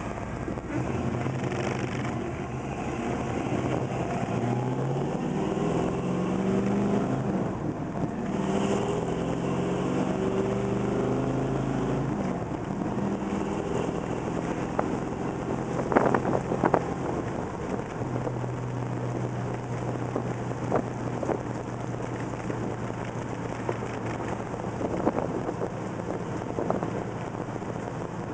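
1969 Plymouth Road Runner's 440 V8 heard from inside the cabin while driving. The engine pitch rises for the first several seconds as the car accelerates, then settles into a steady cruise, with a few sharp knocks about halfway through.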